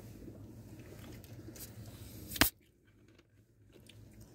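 A plastic soda bottle's screw cap being twisted open: one short, sharp burst of escaping fizz about two and a half seconds in, over a low hum and a few faint clicks.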